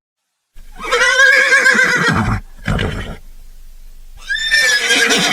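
Horse whinnying twice: a long, quavering call starting about half a second in, then a second one about four seconds in.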